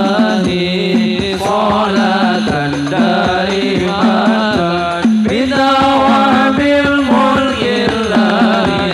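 Sholawat group performing Islamic devotional praise: male voices singing a winding, ornamented melody over a steady beat of hand-held frame drums.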